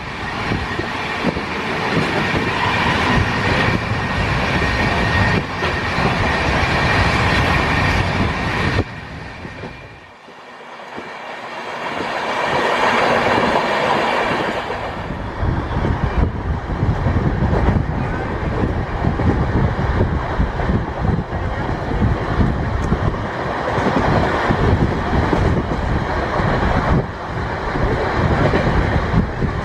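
Express train passenger coach running on the rails: a steady rumble of wheels with clickety-clack. About nine seconds in, the noise drops off sharply for a couple of seconds, then builds back up to full level.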